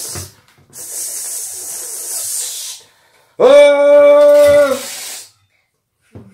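Aerosol can of slime foam spraying in a long hiss for about two seconds. A few seconds in it sprays again under one long, loud held vocal note, sung out on purpose to cover the hiss.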